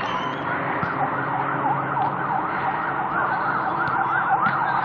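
Emergency-vehicle siren in a fast yelp, its pitch sweeping up and down about three times a second.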